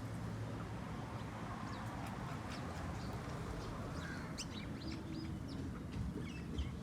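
Birds chirping: many short, high calls scattered throughout, over a steady low hum.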